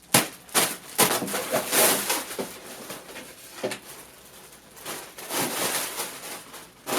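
A delivery package being opened by hand: irregular rustling and tearing of packaging, broken by several sharp clicks and snaps.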